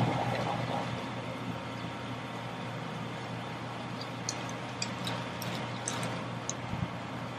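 A plastic bag and a paper towel being handled, giving a few small crinkles and ticks about halfway through, over a steady outdoor background hiss.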